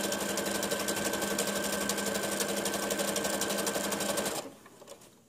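Electric sewing machine stitching through burlap, running at a steady speed with a fast, even stitching rhythm over a motor hum, then stopping abruptly about four seconds in.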